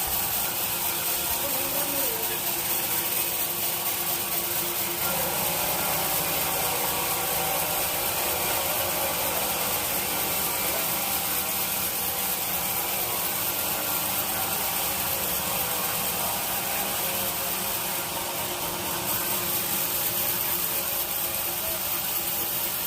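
Sawmill saw and machinery running steadily while working old teak wood, a dense even hiss with a faint mechanical hum underneath.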